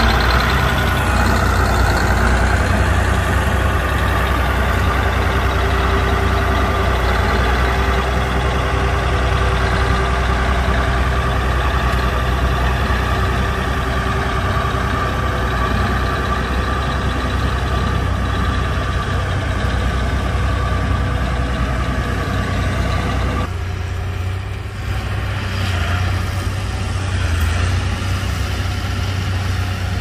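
Komatsu crawler bulldozer's diesel engine running steadily with a deep rumble. About three quarters of the way through it turns abruptly duller.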